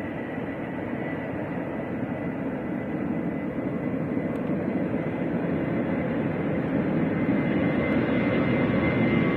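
Jet airliner's engines running, a steady rushing noise with a thin high whine, growing slowly louder.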